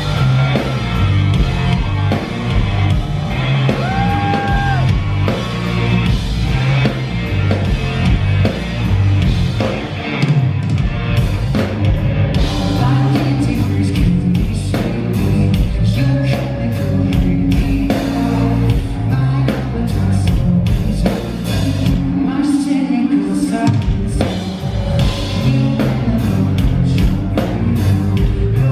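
Live rock band playing loudly in a large hall: electric guitar, bass guitar and drum kit, with a male lead singer screaming and singing over them. About twelve seconds in the drumming turns to steady, sharp hits that drive the beat.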